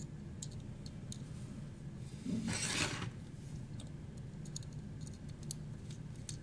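Small metal and plastic parts of an electric can opener's cutter assembly handled by hand while a screw is fitted: a brief scraping rub about two and a half seconds in, then a scatter of light clicks and ticks.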